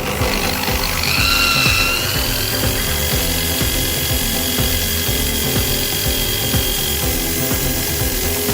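Washing-machine motor spun as a generator in reverse direction, running with a dense mechanical noise. Its whine rises in pitch about a second in, then holds steady.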